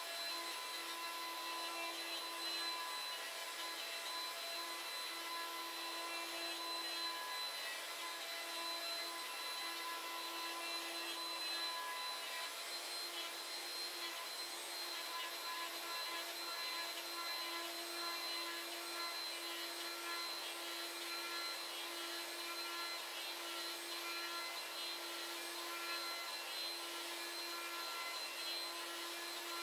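Router spindle on a greenBull CNC machine running at speed while its bit cuts a part out of wood sheet: a steady whine with a hiss and no break.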